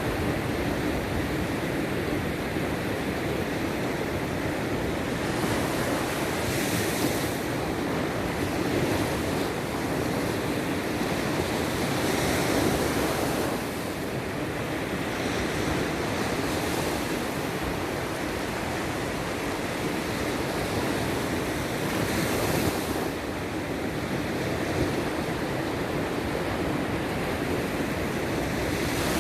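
Sea surf: waves breaking and washing in, a continuous rush with a few louder surges about a quarter of the way in, near the middle and about three-quarters in.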